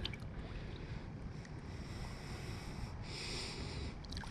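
Faint, steady low rumble of outdoor background noise, with a high hiss that rises for about a second near the end.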